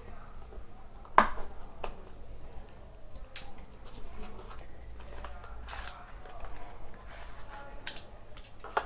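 Hands opening the small retail box of a phone adapter, breaking its seals: scattered clicks, taps and short rustles of the packaging, the sharpest snap about a second in.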